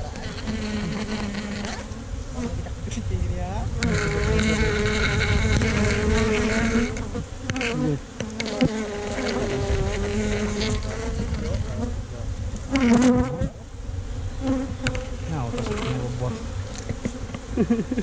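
Honey bees buzzing around their nest as it is broken out of a tree-trunk cavity: a steady drone of many bees, with individual bees flying close past so the pitch bends up and down, loudest about 13 seconds in.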